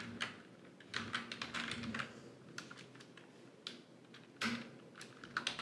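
Typing on a computer keyboard: irregular clusters of short key clicks with pauses between them. A brief low hum sounds about four and a half seconds in.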